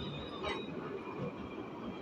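A tram passing close by: a steady rumble of wheels on the rails, with a faint high whine that fades out about half a second in, where a single sharp click is heard.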